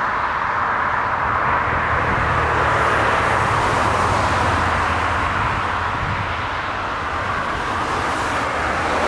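Turbofan engines of a twin-engine widebody jet airliner at takeoff thrust during its takeoff roll: a loud, steady rushing noise with a low rumble beneath.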